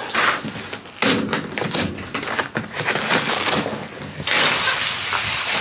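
Utility knife cutting open a cardboard box, with the cardboard and bubble wrap inside crackling and rustling as they are handled; many short snaps and clicks.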